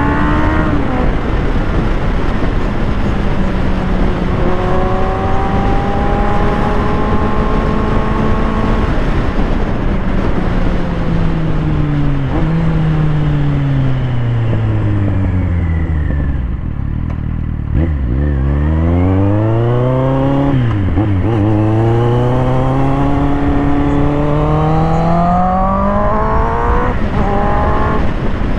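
Motorcycle engine under way: the engine note holds and climbs gently, falls away to a low note as the bike slows about halfway through, then rises again, dipping once at a gear change, as it accelerates.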